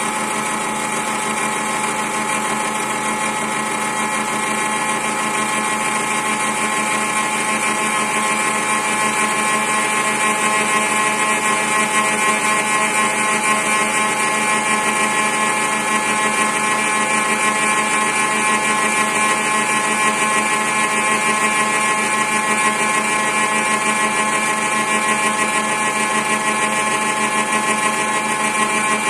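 CNC spindle with a 6 mm two-flute spiral flat-end mill running steadily and cutting a turning wooden blank, a steady whine with several pitched tones over a rushing noise. It grows a little louder about ten seconds in.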